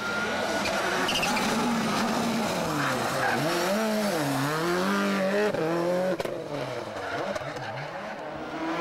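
Subaru Impreza WRC rally car's turbocharged flat-four engine revving hard through a hairpin. The engine note falls and rises several times as the driver lifts off and accelerates again, and the sound drops suddenly just after six seconds.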